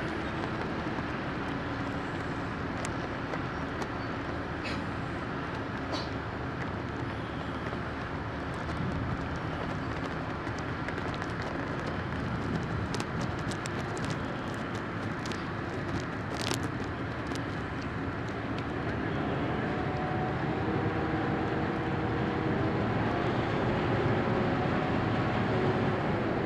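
A cargo ship's diesel engine running at low speed under a steady outdoor rumble; from about 19 seconds in, a hum of several steady tones grows louder as it comes closer. A few short sharp ticks sound in the middle.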